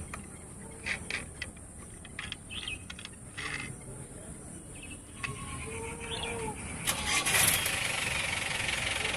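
Light clicks and taps of a die-cast toy truck being handled and its parts moved. About seven seconds in, a steady engine-like rushing noise starts suddenly, louder than the clicks, and keeps going.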